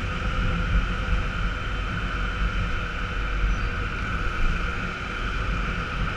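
Honda Bros 150 motorcycle's single-cylinder engine running steadily at cruising speed, with steady wind and road noise over the camera microphone.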